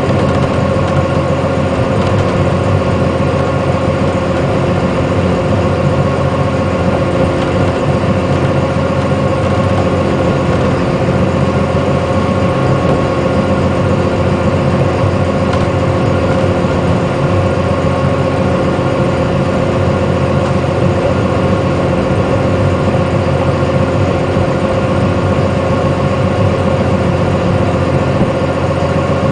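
An engine running steadily at one constant speed, a continuous hum that never changes.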